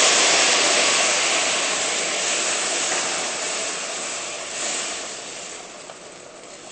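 Hot water hitting a hot pan of bulgur sautéed in oil and butter with onion, peppers and mushrooms: a loud hissing sizzle that fades steadily as the pan cools.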